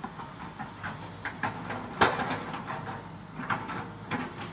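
Komatsu PC200-7 hydraulic excavator and dump truck with diesel engines running steadily, under a series of knocks and clatters of earth and rock being loaded into the steel truck bed, the loudest a sharp bang about two seconds in.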